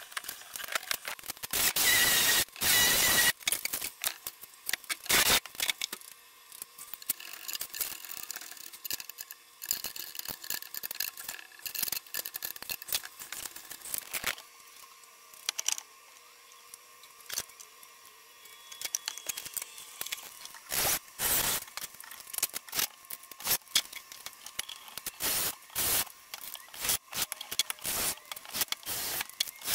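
Workshop handling noise: scattered clicks, knocks and scrapes as deer antlers, wooden boards and metal brackets are moved and fitted, with longer scraping stretches about two seconds in and again around twenty-one seconds.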